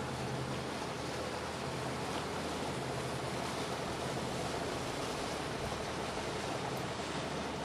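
Small motorboat's engine running steadily as it crosses the harbour, a low hum over a steady wash of harbour water and wind.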